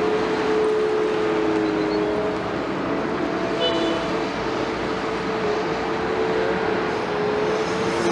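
Liebherr 946 excavator's diesel engine running steadily, with a steady whine over the engine noise.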